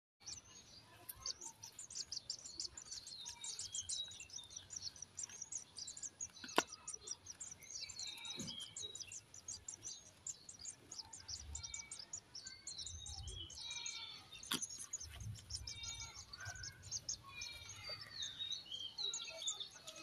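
A clutch of nestling birds chirping rapidly and without a break in high, thin cheeps. Two sharp clicks cut through, about six and a half seconds in and again near fifteen seconds.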